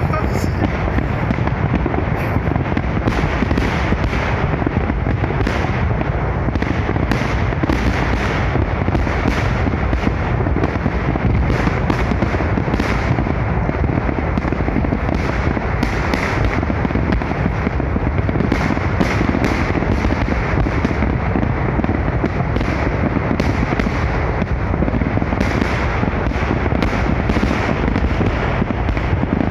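Large fireworks display salute firing in a continuous barrage: many overlapping bangs and crackles several times a second, with no pause.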